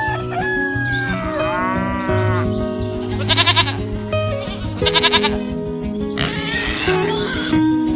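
Background music with steady held notes, over which farm-animal calls sound several times: a long bending call about a second and a half in, then two shorter quavering calls around three and five seconds in.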